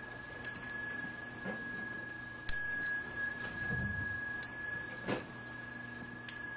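Small Buddhist ritual hand bell struck four times, about two seconds apart, its high ring carrying on between strikes; the strikes pace the assembly's bows to the Buddha. A duller knock comes about five seconds in.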